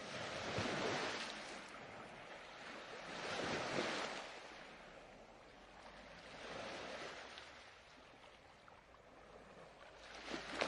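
Ocean surf: waves washing in one after another, four swells of rushing water about three seconds apart, each rising and fading.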